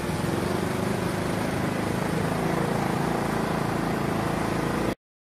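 A crowd of small motorcycles and scooters revving and pulling away together, their engines rising in pitch. The sound cuts off suddenly near the end.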